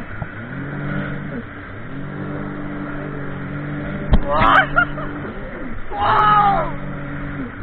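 Jet ski engine running under throttle, its pitch rising and falling repeatedly as the rider works the throttle. A sharp knock comes about four seconds in, with short shouts just after it and again about six seconds in.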